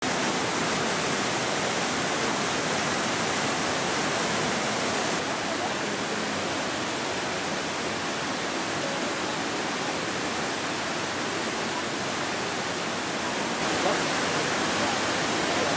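A tall multi-tiered waterfall, a steady rush of falling water, its tone shifting slightly about five seconds in and again near the end.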